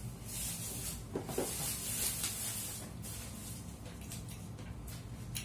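Close-up eating sounds of someone chewing goat satay: soft hissing mouth noises through the first three seconds, then a few small clicks near the end.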